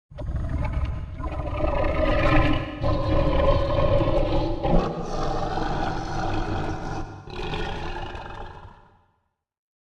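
Monster roar sound effect: one long, rough, pitched roar of about nine seconds that starts suddenly and swells and dips in several surges before fading out.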